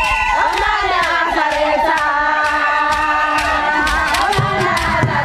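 Group of voices singing and chanting together for a South African traditional dance, over a steady beat of sharp hits.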